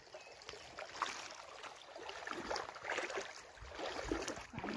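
Feet wading through a shallow stream, water sloshing and splashing with each step, the splashes getting louder in the second half.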